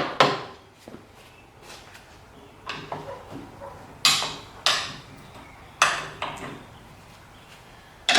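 Sharp metal-on-metal knocks and clanks, about seven spread irregularly, each with a brief ring, as the top pivot pin of the skid steer's hydraulic cylinder is worked loose with hand tools.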